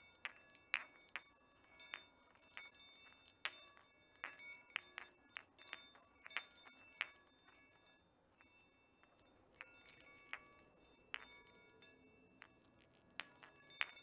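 Chinese meditation (Baoding) balls clinking in sharp, irregular strikes, their inner chimes ringing with high bell-like tones after each hit. The strikes come several a second and ease off briefly a little past the middle.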